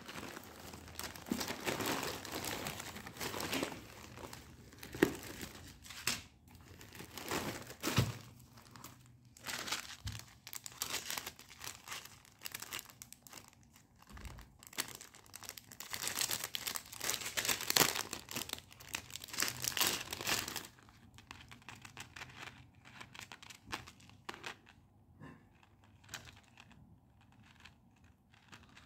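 Packaging of a jewellery order being handled and torn open: dense crinkling and tearing for about twenty seconds, then quieter scattered clicks and rustles.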